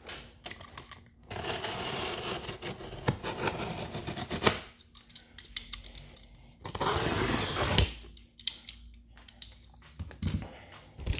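A utility knife cutting through packing tape on a cardboard box, in two stretches of rough cutting: a longer one of about three seconds, then a short one just past halfway. Scattered clicks and taps of the knife and hands on the box come between them and near the end.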